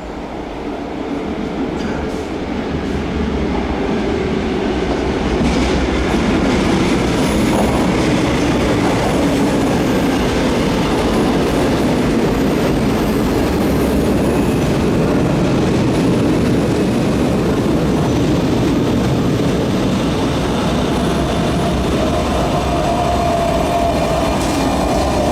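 A train running through a station, with wheels rumbling on the track: it grows louder over the first few seconds, then holds steady. A steady whine comes in near the end.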